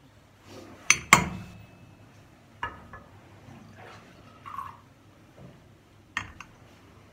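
Glass cruets and a gilt metal chalice clinking as they are handled and set down on a metal stand: two loud clinks about a second in, lighter ones later, with a brief pour from a cruet into the chalice.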